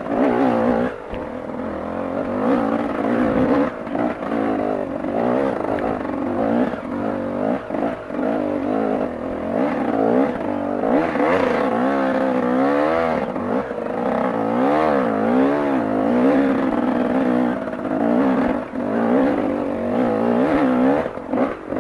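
Dirt bike engine revving up and down over and over as the bike picks its way up a rocky climb, with scattered knocks and clatter from the bike on the rocks.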